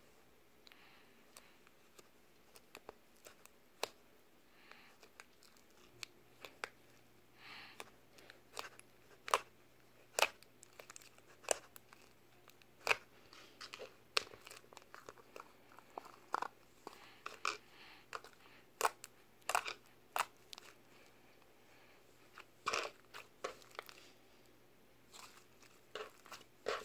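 White fluffy slime being squeezed, poked and kneaded by hand in a plastic tub, making irregular sticky clicks, pops and crackles.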